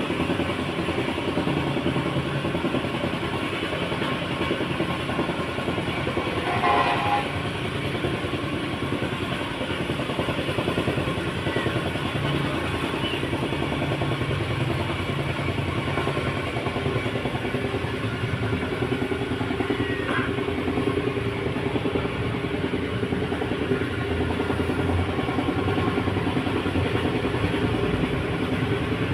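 A loud, steady mechanical rumble with a dense rattling texture throughout. A brief higher-pitched sound sits on top of it about seven seconds in.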